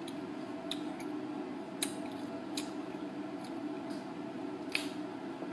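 Steady hum of a ventilation fan, with scattered faint clicks and mouth sounds as a pineapple chunk is taken from a glass bowl and chewed.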